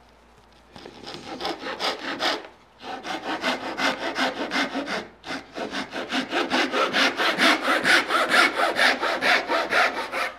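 Thin-bladed hand saw cutting the tenon of a wooden door muntin with quick, even strokes, about four or five a second. The sawing comes in three runs broken by two short pauses and grows louder toward the end.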